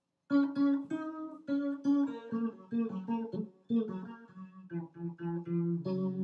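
Cigar box guitar playing a picked instrumental intro: single plucked notes in a melody that steps downward, ending on a chord that rings on near the end.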